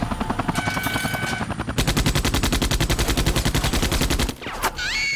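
Automatic gunfire as a film sound effect: a rapid, even stream of shots that is loudest from about two seconds in and stops abruptly just past four seconds.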